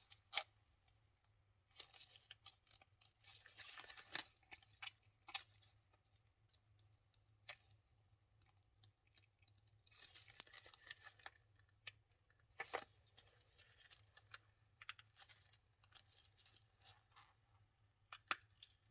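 Silicone mold being flexed and peeled off a cured resin casting: faint scattered clicks and short crackling, peeling noises, with longer stretches of crackling about three seconds in and again about ten seconds in.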